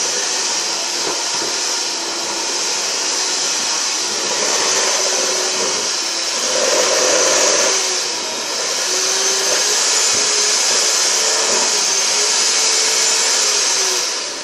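Handheld electric mixer running steadily, its beaters churning cookie dough in a stainless steel bowl; the motor's pitch wavers a little as the load changes.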